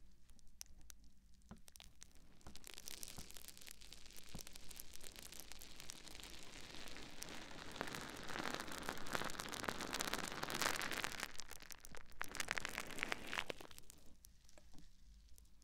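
Sponge squeezed and rubbed close to a microphone: a dense, crinkly crackle of many small clicks that builds from about two seconds in, is loudest in the middle and fades near the end.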